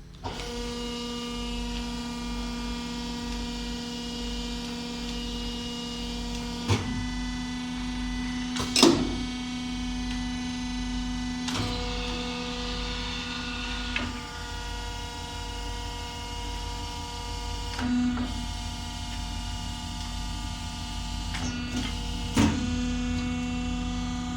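Electric motor of an Ozcelik Apex 1 corner-crimping machine starting and running with a steady hum, with a few short knocks from the machine every few seconds.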